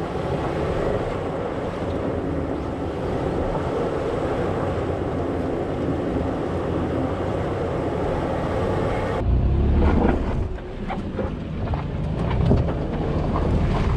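Toyota 4Runner crawling along a rocky dirt trail: steady engine and tyre noise with wind on an outside-mounted microphone. About nine seconds in, the sound changes abruptly to a deeper rumble with scattered crackles and knocks.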